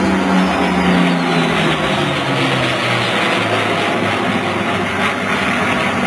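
A formation of an F-15 jet fighter, a P-39 Airacobra and two P-51 Mustangs flying past overhead, its jet and piston engine noise loud and steady. The engine note falls steadily in pitch over the first few seconds as the aircraft pass over and away.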